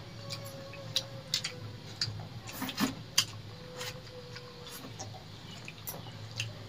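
People eating rice and curry with their hands from steel plates: scattered soft clicks, smacks and chewing noises.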